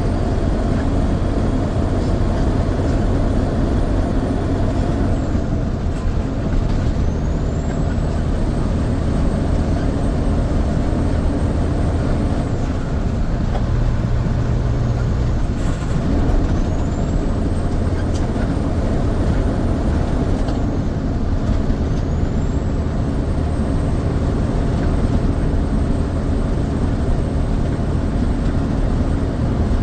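Heavy grain truck's engine running steadily, heard from inside the cab. A thin high whine rises and then drops away several times.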